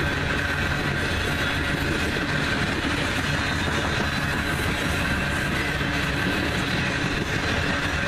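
Loaded coal hopper cars of a freight train rolling past, a steady rolling rumble of steel wheels on rail with a thin, steady high-pitched ring above it.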